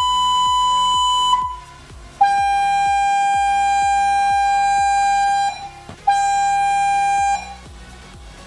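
Loudspeaker with a piece of mirror glass glued to its cone playing steady electronic test tones. A tone near 1 kHz stops after about a second and a half. After a short gap a slightly lower, buzzier tone sounds for about three seconds, then again for about a second.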